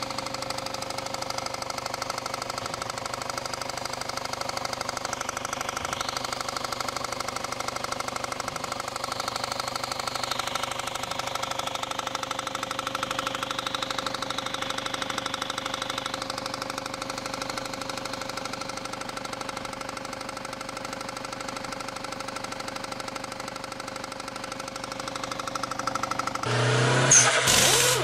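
Car engine running with a loud, rapid deep knocking from the bottom end. The cause is a failing crankshaft pulley (harmonic balancer), though it sounds like rod knock. Near the end a short, loud logo sound effect takes over.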